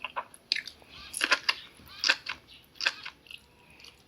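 Someone chewing and biting food close to the microphone: a series of short, sharp, wet mouth sounds, about half a dozen, loudest a little over a second in.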